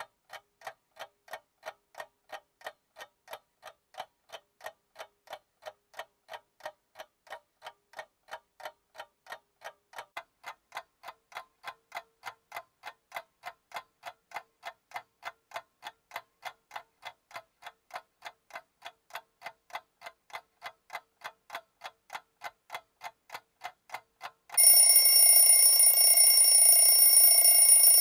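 A clock ticking steadily, about two ticks a second. About three and a half seconds before the end a loud, shrill alarm starts ringing and drowns out the ticking.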